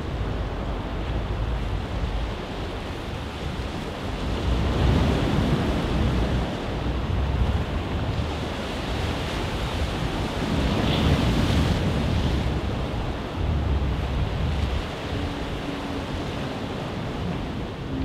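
Waves washing ashore, swelling and easing every few seconds, with a low wind rumble on the microphone.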